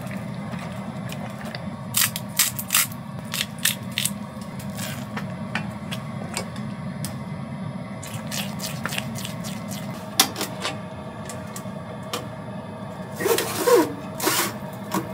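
A wooden spoon stirring in a stainless steel saucepan, knocking against the pot in a run of light taps, over a steady low hum. Near the end, a metal roasting tin scrapes across the oven rack as it is handled in a wood-stove oven.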